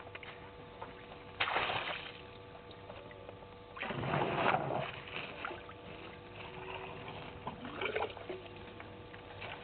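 African elephants drinking at a waterhole: water splashing and sloshing as their trunks draw it up and empty it, in a short burst about a second and a half in and a longer, louder one about four seconds in.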